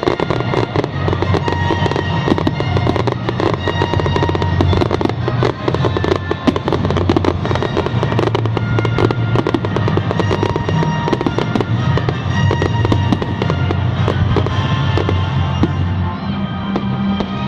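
Fireworks display going off in a rapid, unbroken barrage of bangs and crackles, with music playing underneath.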